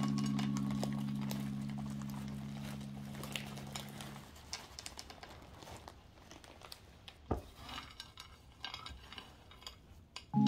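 A held music chord fades out over the first four seconds. Then come light pattering and small clicks of semisweet chocolate chips dropping onto soft dough and a ceramic plate, with one sharper knock about seven seconds in.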